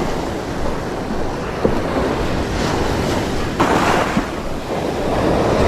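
Surf washing onto a beach, with wind buffeting the microphone. A wave surges a little over halfway through, and the wash grows louder near the end.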